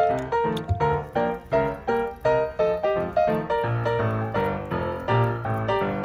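Background piano music: a steady run of notes, with bass notes coming in about halfway through.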